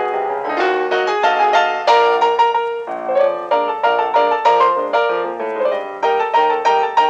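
Background piano music: a melody of quick, evenly paced notes.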